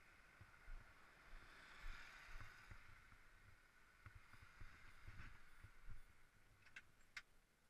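Near silence, with faint scattered bumps and a couple of sharp clicks near the end.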